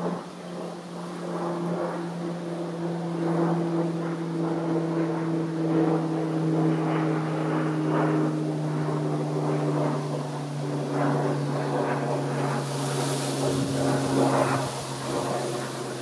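An engine drone from a passing motor, a steady hum with a second, higher tone above it, both slowly falling in pitch as it goes by.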